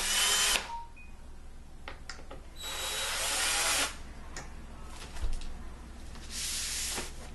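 Cordless drill running in three short bursts of about a second each, with a few clicks and a knock in between.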